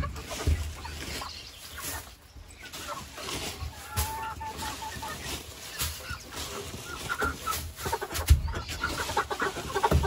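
Chickens clucking, with scattered short calls and one longer held call partway through, and a low knock near the end.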